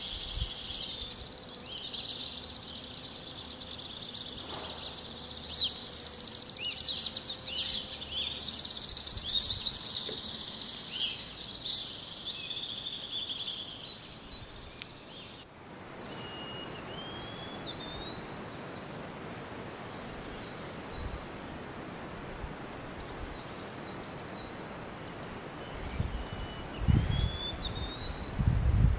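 A dense chorus of songbirds chirping and trilling, which stops suddenly about halfway through. After that comes a steady rushing noise with a thin rising whistle every few seconds, typical of a wallcreeper's song. Near the end there are a few low thumps of wind on the microphone.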